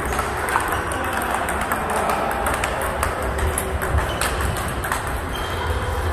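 Table tennis balls clicking off bats and tables in a rally warm-up, irregular sharp clicks from more than one table over a steady hall background.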